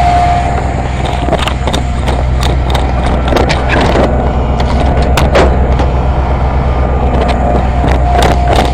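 A heavy vehicle's engine, likely the fire engine, runs with a steady low drone, joined by a steady whine at the start and again near the end. Scattered sharp cracks and snaps are heard through the middle.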